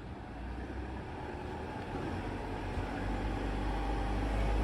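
Low, steady rumble of a moving vehicle, growing steadily louder.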